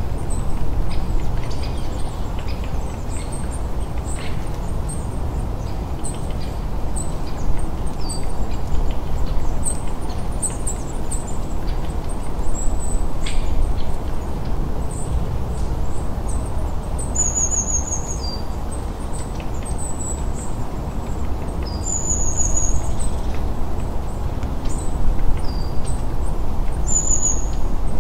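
Small birds chirping, short high calls scattered throughout, with a few quick runs of falling notes in the second half, over a steady low rushing background noise.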